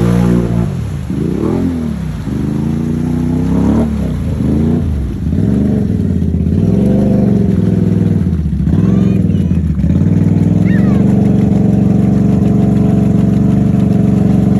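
ATV engine revving up and down repeatedly, then held at steady high revs for the last few seconds as the four-wheeler works through a mud hole.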